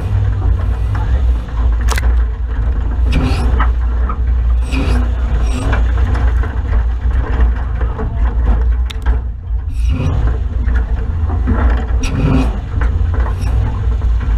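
Off-road 4WD's engine running as it drives over a rough bush track, with a heavy low rumble and scattered knocks and thumps from the vehicle bouncing over the ground and brushing through scrub.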